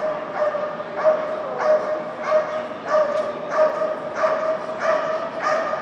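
Protection dog barking at a decoy in a bite suit: a steady run of loud barks, about one and a half a second.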